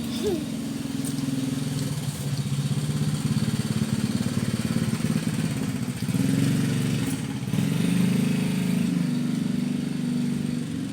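A small engine running steadily with a low, pulsing note, a little louder from about six seconds in.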